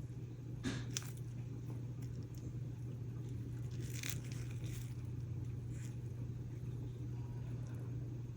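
Dried flowers and stems being handled and pushed into place, giving a few brief crackles and rustles: one about a second in, another near the middle, a fainter one later. A steady low hum runs underneath.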